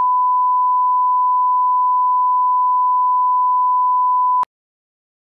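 Steady 1 kHz reference test tone, the line-up tone that goes with SMPTE colour bars. It is one pure, unchanging pitch and cuts off abruptly about four and a half seconds in.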